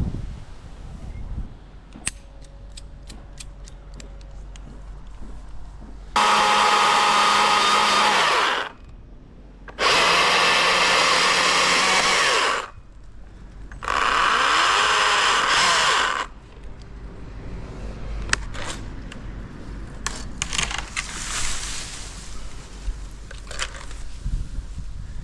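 Chainsaw run at full throttle in three bursts of two to three seconds each, cutting into an elm stem, with short pauses between. Lighter rustling and a few clicks follow near the end.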